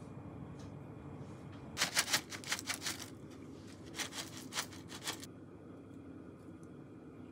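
Crispy fried garlic chips poured from a bag onto plates of fried rice: a rapid, crisp pattering of small pieces landing, in two bursts of about a second each, a second apart.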